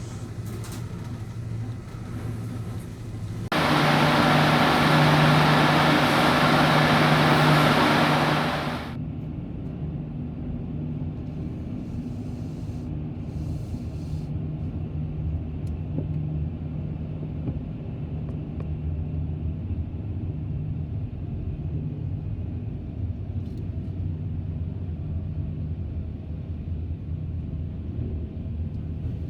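Steady low drone of a ferry's engines and machinery heard on board. About three and a half seconds in, a loud rushing hiss starts abruptly, covers the drone for about five seconds, then stops.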